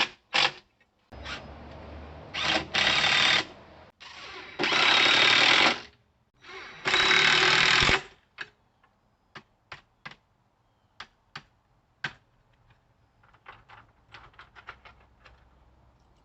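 A power tool run in several short bursts of about a second each, followed by a string of sharp clicks and knocks.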